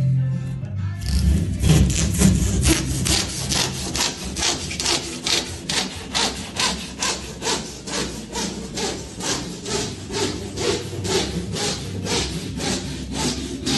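Handsaw cutting through Kingspan Kooltherm K118 insulated plasterboard, phenolic foam backed with plasterboard, in steady back-and-forth strokes of about two to three a second, starting about a second in.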